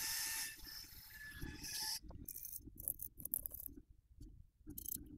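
Faint bench soldering sounds: a hiss with a faint whine for about two seconds that cuts off suddenly, then scattered light clicks and taps from the tools against the circuit board.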